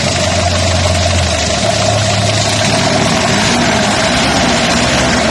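Car engine idling steadily with a steady whine, running with its headlights and air conditioning on as a load. The voltage drops to only about 11, which the mechanic reads as a failed charging test pointing to the alternator.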